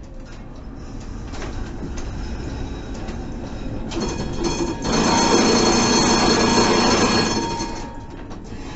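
Tram wheels squealing on curved street track over a steady running rumble, heard from inside a tram cab. The squeal is a cluster of high, steady tones that grows from about four seconds in, is loudest from about five to seven and a half seconds in, then eases.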